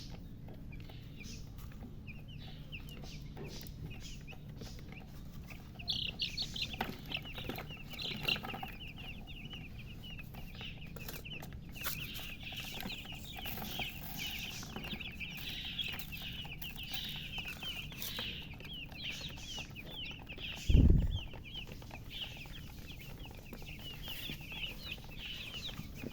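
A group of newly hatched chicks peeping, many short high chirps overlapping, which start about six seconds in and keep going. A single loud low thump comes late on.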